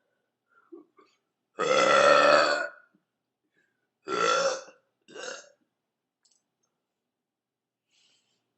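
A woman burping: one long, loud belch about a second and a half in, then two shorter ones a couple of seconds later, the last one weaker.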